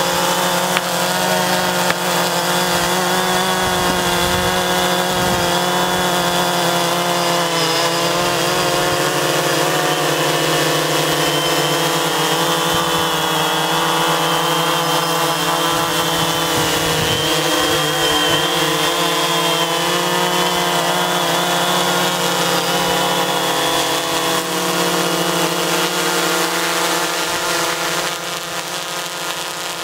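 DJI Phantom 3 quadcopter flying close by: its four motors and propellers make a loud, steady buzzing whine of several pitches that waver slightly as it holds and shifts position. It gets a little quieter near the end.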